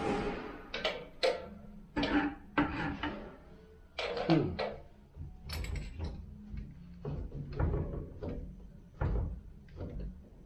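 Irregular knocks, clicks and clunks, about a dozen spread unevenly, with a short falling squeak about four seconds in.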